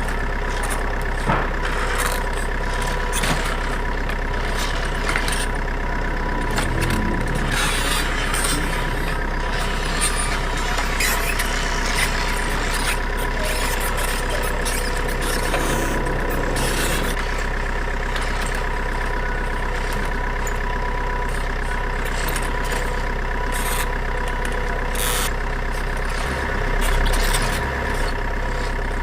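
Radio-controlled offroad truck running steadily, a constant mechanical drone with a fixed whine, with scattered small clicks and knocks; a low swell comes near the end.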